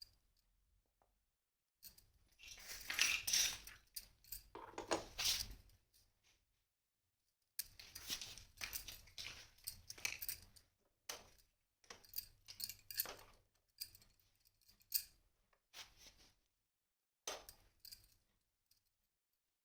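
Small plastic toy kitchen pieces being handled and unpacked: irregular rustling with light clicks and clinks, denser in the first half and then thinning to scattered single clicks.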